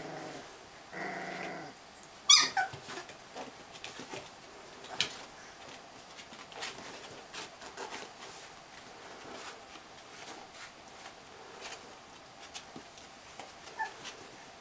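Three-week-old Siberian husky puppies play-fighting, with short puppy growls and whines near the start. About two seconds in comes one sharp, high puppy yelp that falls in pitch, then scattered small scuffs and clicks as they wrestle.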